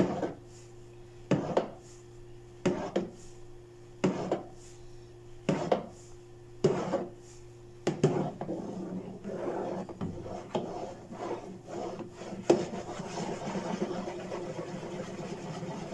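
A metal spoon stirring and scraping around a plastic bowl of foaming baking-soda and vinegar fabric-softener mix, stirred to knock the foam down. It goes in single strokes about every second and a half at first, then turns into quicker, steadier rubbing and scraping about halfway through.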